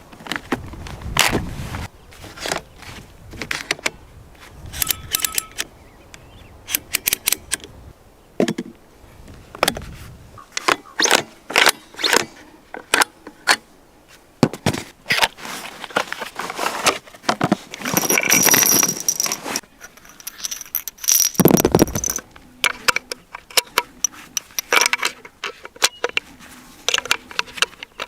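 Metal clicks, clacks and rattles of a bolt-action sniper rifle being handled, coming in quick irregular bursts, with a longer scraping rattle about two thirds of the way in and a heavier thud soon after.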